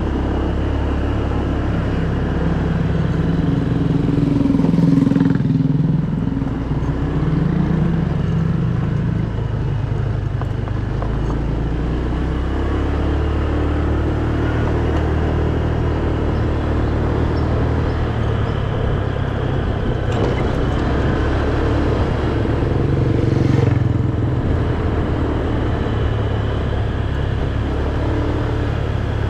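Motor scooter engine running under way, its pitch rising and falling as the rider speeds up and slows, over steady road and wind noise.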